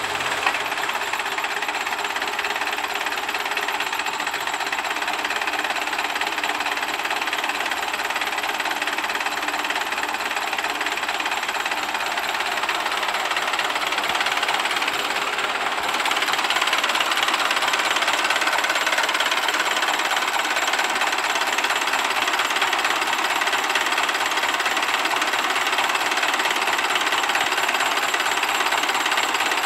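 Belarus 892 tractor's four-cylinder diesel engine running steadily, a little louder after about the middle.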